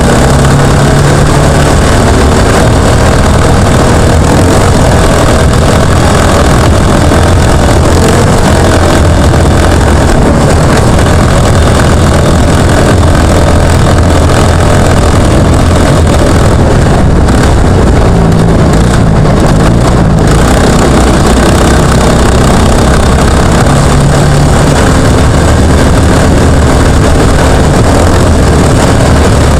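Jr1 off-road trophy kart engine running hard, recorded on board, very loud and constant, with its pitch shifting up and down as the kart drives the course.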